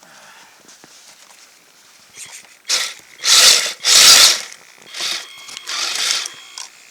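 Kyosho Blizzard RC snowcat's electric drive whirring in several short throttle bursts, the loudest about three and four seconds in, with a faint steady whine near the end. Its tracks are packed with built-up snow.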